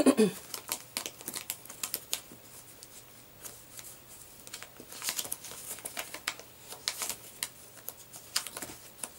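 Papers and card folders in a filing drawer being flipped through by hand: a quick, irregular run of ticks and paper rustles, with slightly fuller rustles about five and seven seconds in.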